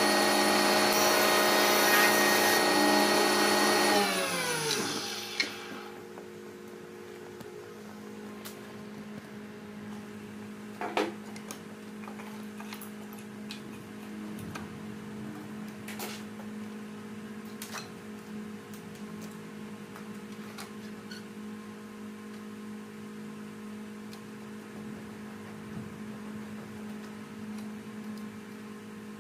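Woodworking jointer running with a steady whine, then switched off about four seconds in, its pitch falling as the cutterhead coasts to a stop. A low steady hum remains afterwards, with a few light clicks and knocks.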